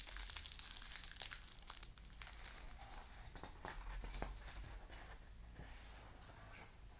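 Dry leaves crackling and crinkling as they are handled and crushed by hand: faint, scattered crisp crackles. Near the end a book page is turned.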